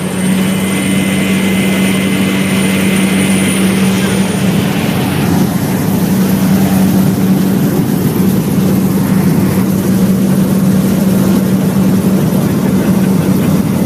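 Small propeller airplane's engine at high power, heard from inside the cabin during the takeoff roll: a loud, steady drone with a strong low hum and a thin high whine held above it.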